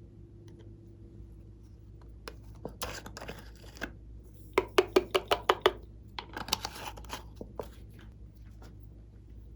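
Glossy slime being handled: crackly squishing, then a quick run of about eight sharp pops, then more crackly squishing.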